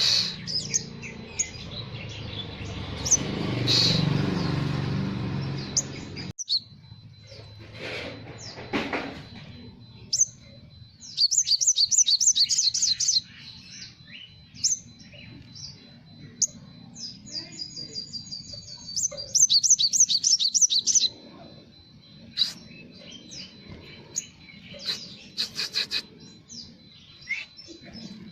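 Olive-backed sunbird (sriganti) singing: sharp high chirps throughout, with two bursts of fast rattling trills of about two seconds each, the first around eleven seconds in and the second around nineteen seconds in. A low noisy background under the first six seconds cuts off abruptly, and a thin steady high tone runs on after that.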